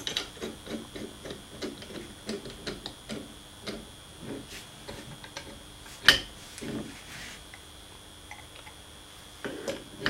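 Light metallic clicks and ticks from a spindle-puller kit as its long pusher bolt is turned by hand through the puller tube and washer on a mini lathe headstock. There is one sharper click about six seconds in, and the clicking thins out after it.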